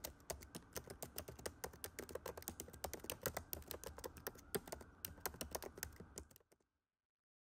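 Typing sound effect of a computer keyboard: rapid, irregular key clicks, several a second, that stop abruptly about six and a half seconds in.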